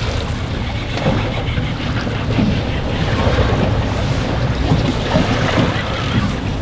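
Heavy wind buffeting the microphone, with waves washing against an anchored boat.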